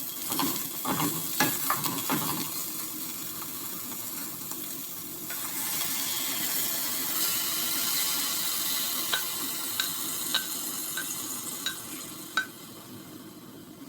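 Food frying in oil in a pot, sizzling steadily, with a utensil stirring and scraping through it for the first couple of seconds. The sizzle swells in the middle and eases off near the end, with a few sharp ticks.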